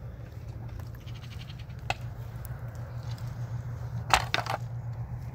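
A single sharp knock about two seconds in, then a quick cluster of louder knocks about four seconds in, over a steady low rumble.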